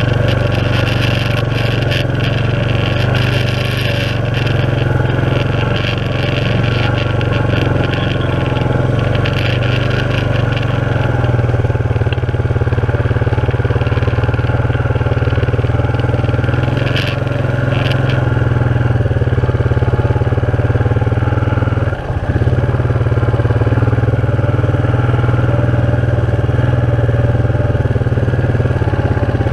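Honda FourTrax ATV engine running steadily while being ridden, with extra rattle and clatter in the first few seconds and again briefly later.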